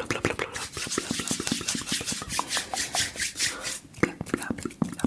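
Fast ASMR mouth sounds close to the microphone: rapid wet clicks and pops, with a run of quick breathy hissing strokes, about five a second, through the middle.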